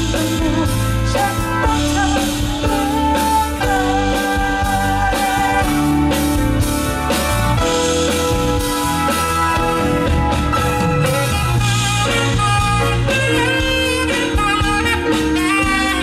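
A live band playing a pop song with a steady drum beat.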